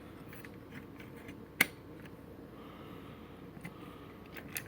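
Plastic push-pin fasteners of a CPU heatsink fan being twisted and released by hand: one sharp click about a second and a half in, then light clicks and rustles near the end.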